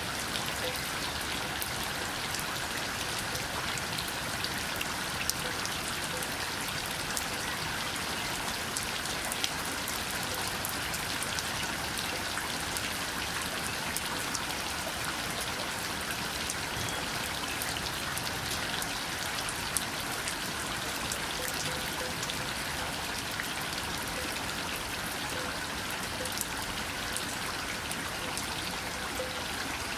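Steady rain with many individual drops ticking on a surface over a continuous hiss.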